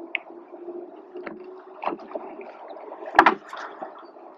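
Rowing shell under way: oars working in the oarlocks and blades moving water, with a few sharp knocks, the loudest about three seconds in.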